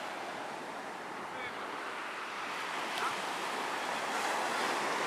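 Sea waves washing onto a beach: a steady rush of surf that swells and eases, with some wind on the microphone.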